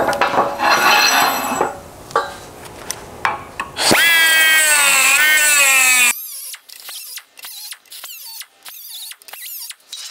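Pneumatic cut-off tool with a small abrasive disc cutting steel: two loud spells of a high whine whose pitch wavers as the disc bites, with a quieter gap between. The whine stops abruptly about six seconds in, leaving quieter short clicks.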